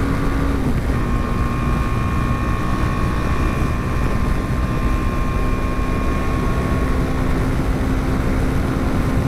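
BMW G 310 GS's 313cc single-cylinder engine running at a steady highway cruising pitch, heard from the rider's position over heavy wind rush on the microphone. The engine note dips slightly just under a second in, then holds steady.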